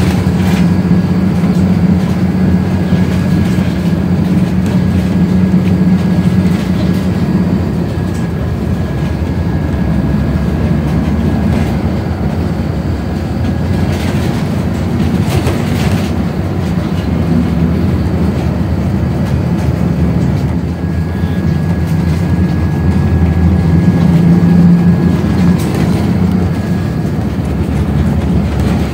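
Inside a moving bus: steady engine drone and road rumble, with a few sharp knocks and rattles from the body.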